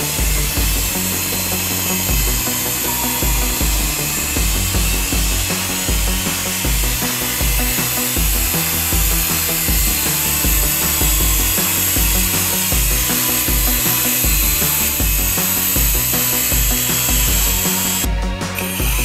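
A small electric toy RC helicopter's rotor motors whining steadily as it flies, over background music with a thudding bass beat. The whine breaks off briefly near the end.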